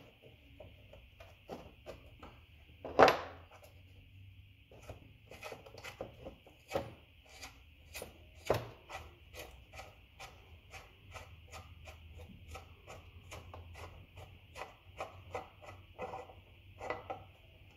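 Small irregular metal clicks and scrapes of nuts and washers being turned off by hand from the terminal studs of a golf cart contact board, with one sharper knock about three seconds in.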